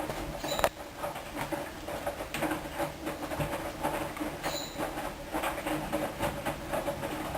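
Hoover DYN 10124 DP washing machine mid-cycle: the drum turning over a motor hum that comes and goes, with irregular pattering, splashing and clicking as the wet load tumbles.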